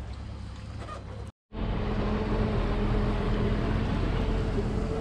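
Motorboat engine running steadily under way, with wind and water rushing past. It drops out for a moment about a second and a half in, then carries on louder.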